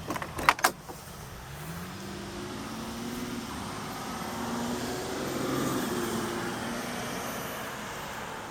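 A few sharp metallic clicks near the start, typical of a car door latch working, then a passing vehicle whose engine note rises, grows loudest a little past the middle and fades away.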